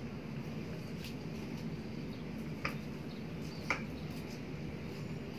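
Wire whisk stirring wet flour batter in a plastic bowl: soft squishy mixing with faint ticks, and two sharp clicks of the whisk against the bowl about two and a half and three and a half seconds in, over a steady low hum.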